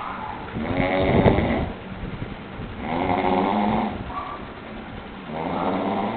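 A heavily drunk man snoring in his sleep: three long snores, roughly one every two and a half seconds.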